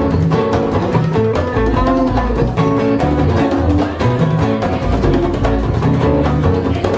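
Live band playing an instrumental passage, recorded on a camera microphone: electric guitar lead over a plucked upright double bass and congas.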